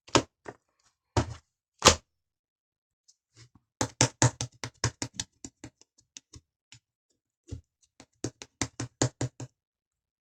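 Slime being squeezed and pressed by hand, giving a run of sharp clicks and pops of trapped air in irregular clusters, with a pause of about a second and a half near the start.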